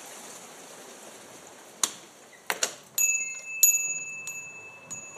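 Two sharp clicks, as of a door opening, then a small shop-door bell rings: it is struck about four times, a little over half a second apart, and rings on between strikes.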